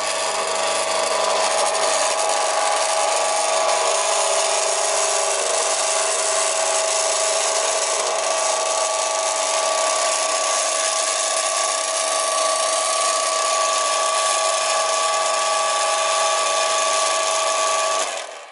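Carpenter's band saw running steadily with a high machine whine and a hiss, then cutting off near the end.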